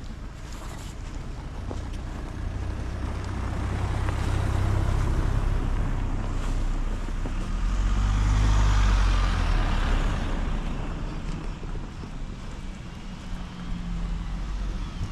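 Motor vehicles driving past on a snow-covered street: a first one swells and fades around four to five seconds in, and a louder one passes about nine seconds in with engine rumble and tyre hiss.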